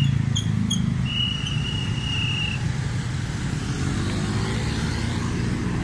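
Road traffic: motorcycles and cars running past with a steady low rumble, and an engine rising and falling in pitch as it passes about four seconds in. A thin high tone sounds for about a second and a half near the start.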